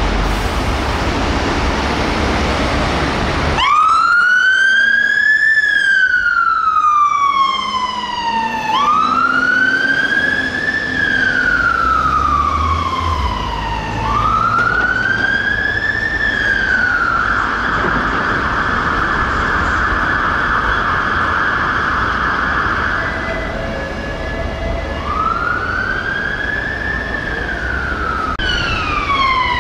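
Fire engine siren wailing, its pitch slowly rising and falling about every five seconds, after a few seconds of loud rushing traffic and engine noise. In the middle it changes for several seconds to a steady buzzing tone, then goes back to the slow wail. Near the end it cuts to a different siren sweeping faster.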